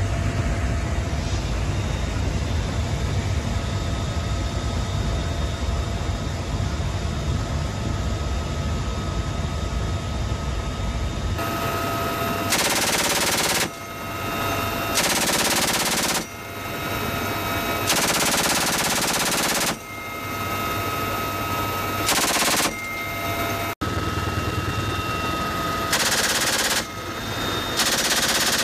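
Steady helicopter cabin noise from the rotor and turbine, then, from about a third of the way in, about six bursts of fire from a door-mounted heavy machine gun, each a half-second to two seconds long, with the helicopter running between bursts.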